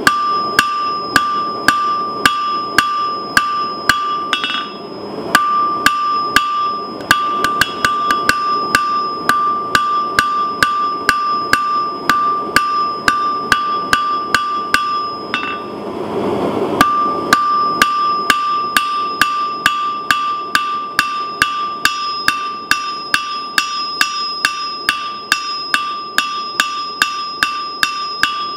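Hand hammer beating a thin red-hot steel rod on an anvil, steady blows about two a second, flattening the rod's end into a small paddle. The anvil rings a clear high tone between blows. The hammering breaks off briefly just past halfway, with a short rushing noise in the gap.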